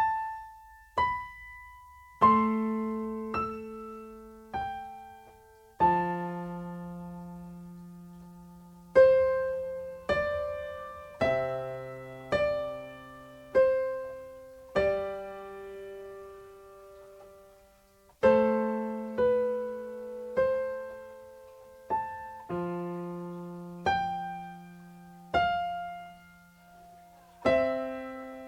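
Keyboard played slowly: single melody notes and chords with held bass notes, struck one at a time a second or two apart and left to ring and fade.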